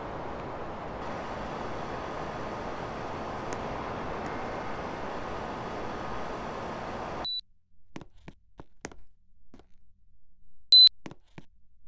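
Air conditioner running with a steady rush of fan airflow, which cuts off abruptly with a short high beep about seven seconds in. Faint scattered clicks follow, and a louder short beep comes near the end.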